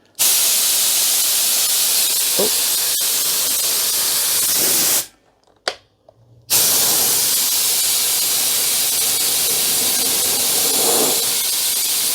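Compressed air hissing out of the air compressor's tank line in a loud, steady blast. It stops for about a second and a half around five seconds in, with one short puff, then blows again. The air is being let out to drop the tank pressure so the pressure switch will start the motor.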